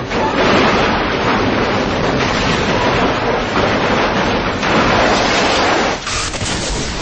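Loud, dense roar of a fiery explosion and burning fireball, with no clear tone in it. About six seconds in it changes suddenly to a thinner rushing noise.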